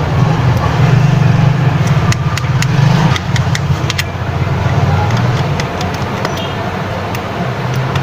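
A steady low hum, with scattered small sharp clicks as a small screwdriver turns the tiny screws out of a keypad mobile phone's plastic back housing.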